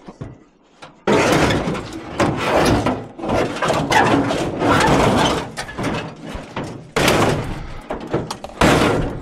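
Loud scraping and clattering of scrap sheet metal being shoved into place on a truck's load, starting suddenly about a second in, with many knocks and bangs.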